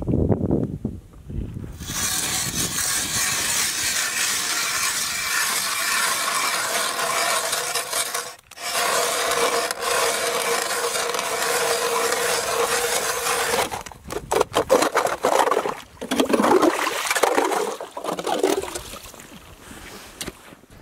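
Hand ice auger cutting steadily into the ice, a long even grinding scrape with one brief break. It is followed by a run of sharp knocks and shorter scraping as the auger works the hole.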